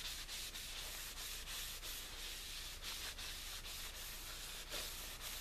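Cloth rubbing a finish onto a carved wooden walking stick: quick, even back-and-forth wiping strokes, about three a second.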